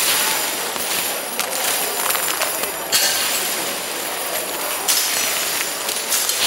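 Steel nails and scrap metal thrown onto a magnet-covered body, with a continuous metallic clatter and jangle as the pieces strike, stick and slide off. Louder clanks come about three seconds in, again about five seconds in, and near the end.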